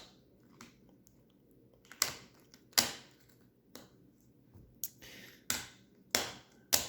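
Plastic 3x3 speed cubes being turned and handled: irregular sharp clacks, about seven over the stretch, with a brief scratchy turning sound around the middle.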